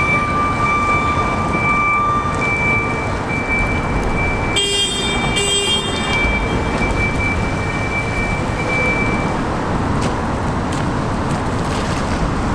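Railcar mover's engine running steadily as it tows a locomotive, under a steady high-pitched whine that fades out about two-thirds of the way through. About five seconds in, a horn gives two short blasts.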